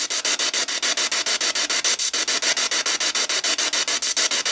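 Spirit box sweeping through radio stations, played through a small JBL portable speaker: hissing static chopped into rapid, even pulses about ten times a second.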